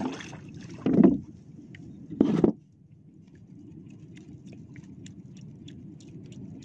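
Two loud dull thumps about a second apart, over a steady low rush of wind and water around a small outrigger boat, with faint light ticks in the quieter second half.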